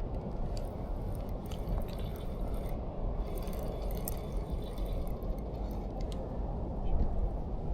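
Water sloshing and lapping with a steady low rumble, and a few faint ticks.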